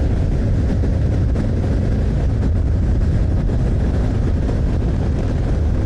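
Kawasaki Z400 parallel-twin motorcycle ridden at speed: steady wind noise on the rider's microphone with the engine running underneath.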